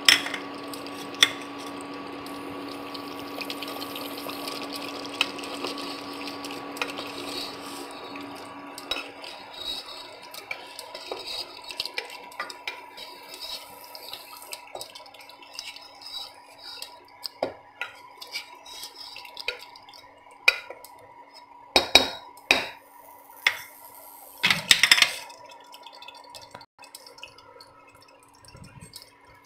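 A ladle stirring jackfruit curry in an open pressure cooker, wet stirring with scrapes and clinks against the pot's metal side. There are a few louder knocks about two-thirds of the way through, over a steady hum and a hiss that fades after the first third.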